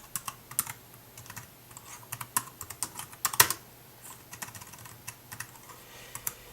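Typing on a Tecknet compact wireless keyboard: a run of irregular key clicks, with the loudest strikes about three and a half seconds in.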